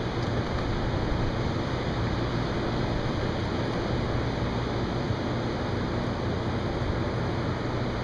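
Steady rushing of surf breaking on the beach and wind, over a low steady hum from an air-conditioner compressor.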